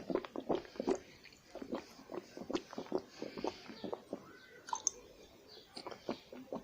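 Wet mouth sounds from water held in a person's mouth: quick irregular clicks and smacks, dense for about the first second and sparser after.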